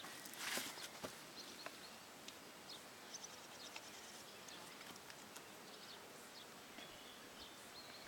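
Faint outdoor ambience: a steady low hiss with scattered short, high bird chirps, and a brief rustle about half a second in.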